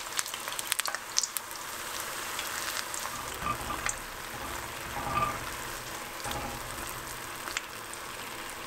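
Papdi (small flat dough puris) frying in hot oil in a metal kadai: a steady sizzle with scattered sharp pops, thickest in the first second or so, as they are turned over with a slotted spoon partway through frying.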